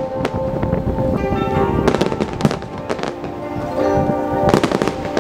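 Aerial fireworks shells bursting in a string of sharp bangs at uneven intervals, over background music with sustained notes.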